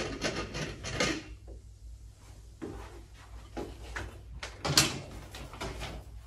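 Handling noises from a plastic filter housing and filter cartridge: about a second of scraping and clatter, then scattered knocks and rustles, the sharpest a little under five seconds in.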